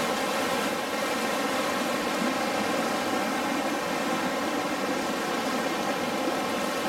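The Piedra River rushing past in fast, high water, a steady unbroken noise of whitewater.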